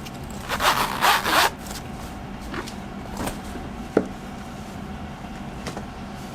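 A paper planner sliding against a tight-fitting cover: about a second of rubbing and scraping, then a few light taps and clicks as it is handled.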